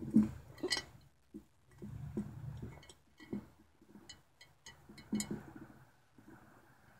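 Small stones clinking and knocking against the inside of a glass jar as a hand moves them around on its bottom. The clinks are faint and come irregularly, about ten in all, some with a brief glassy ring.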